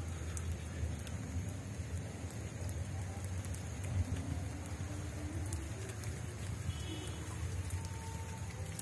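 Rain falling steadily, with scattered sharp ticks of single drops.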